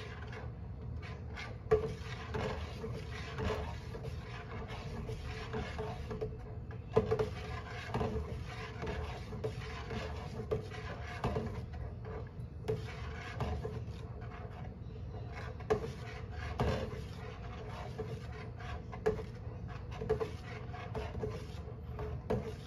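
A long metal spoon scraping and rubbing around the bottom of a large stainless steel stockpot as soy milk is stirred while it heats toward the boil, in irregular strokes about a second apart with the pot ringing faintly.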